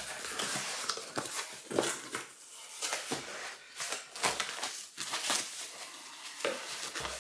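A cardboard shipping box being opened by hand, its flaps scraping, and white tissue-paper packing rustling and crinkling in irregular bursts.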